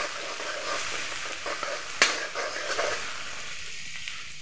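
Chopped onion sizzling as it fries in hot oil in a wok, stirred with a spatula, with one sharp knock of the spatula against the pan about two seconds in. The sizzle thins slightly near the end.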